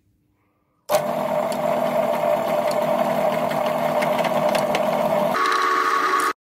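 Pillar drill running, its twist bit cross-drilling a steel block held in a machine vise: a steady machine hum starting about a second in, whose tone steps higher near the end before it cuts off suddenly.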